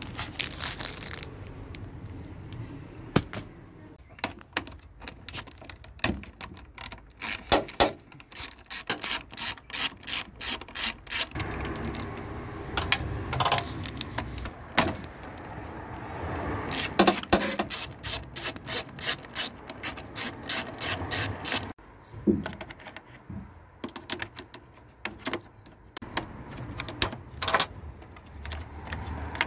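Socket ratchet clicking in runs of quick, even clicks as nuts on the fuse box terminal studs are turned, with scattered single clicks and knocks between the runs.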